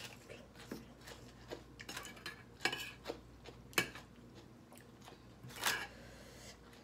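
Metal spoon clinking and scraping against a ceramic plate as food is scooped: a handful of separate clinks, with one sharper knock in the middle and a longer scrape near the end.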